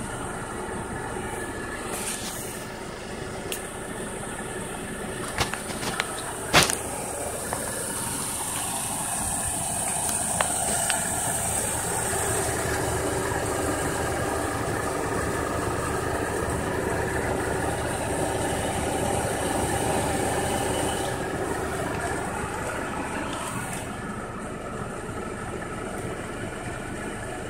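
Mercedes-Benz car engine idling steadily, with a few sharp clicks and knocks between about two and seven seconds in. A broad rushing noise swells over the middle stretch and fades again about twenty seconds in.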